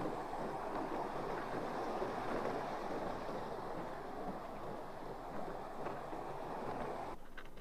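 Steady rushing noise with no distinct events, cutting off abruptly about seven seconds in.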